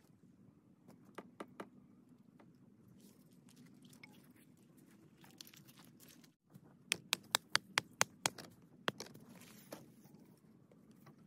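A wooden tent stake being knocked into the ground with a rock: a few light taps about a second in, then a quick run of about eight sharp knocks, roughly four a second, in the second half.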